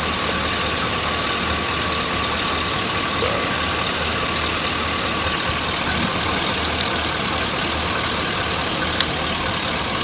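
Chevrolet 2500 pickup's engine idling steadily with an even low pulse, run during a cylinder drop test in which ignition coils are unplugged one at a time to find the misfiring cylinder.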